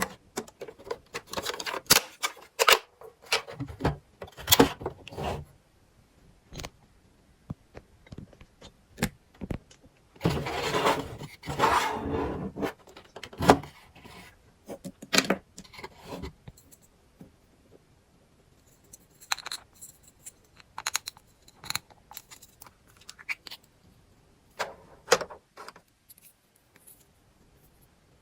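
Small hard plastic toy pieces being handled, with irregular clicks, taps and clatters, and a longer rustle lasting about two seconds around the middle.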